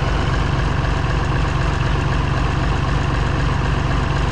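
Valmet 359D tractor's diesel engine idling steadily.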